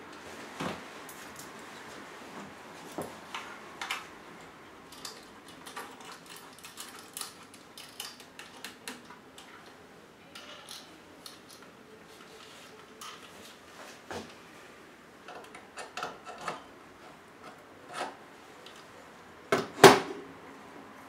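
Handling noises: scattered light clicks and rubbing as objects and a metal camera mount are handled at a table, with two sharper knocks close together near the end.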